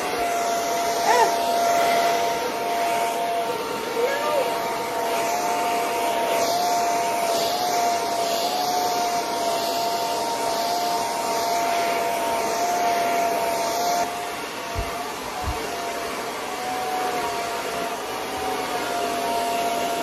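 Handheld hair dryer running steadily as it blow-dries thick natural hair: an even rush of air over a motor hum with two tones that waver slightly as the dryer is moved. The airflow sounds a little duller about two-thirds of the way through, and two soft low knocks come just after.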